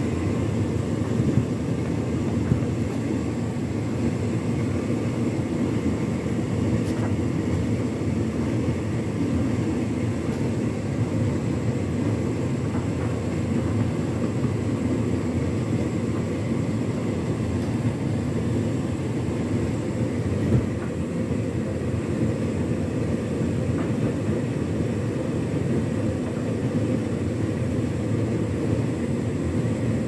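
Hotpoint Ultima S-line tumble dryer running early in a Turbo Dry cycle: a steady, even rumble of the motor and the drum turning a load of clothes. A single louder knock comes about two-thirds of the way through.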